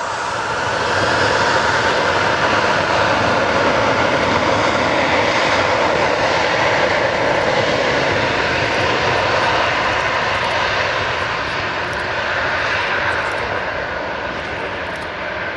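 Boeing 737-800 jet airliner's CFM56-7B turbofan engines at high power during the takeoff roll: loud, steady jet noise with several held whining tones. It swells over the first second or two and eases slightly in the last few seconds as the jet moves away.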